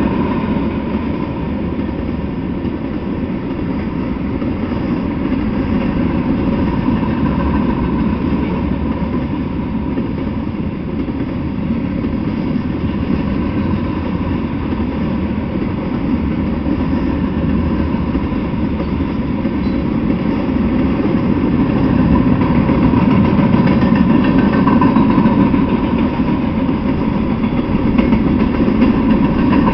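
Freight train of tank cars rolling past on the rails: a steady noise of wheels on track, growing a little louder near the end.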